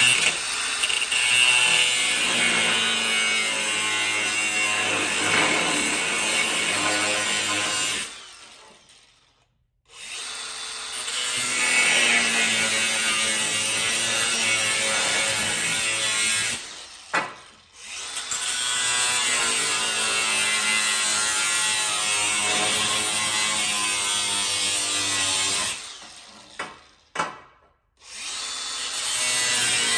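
Cutoff wheel on a grinder running and cutting through a metal wastegate dump pipe at its flange, a steady whine with grinding noise. The tool winds down and stops about a quarter of the way in, then starts again, dips briefly around the middle, and stops and restarts again near the end.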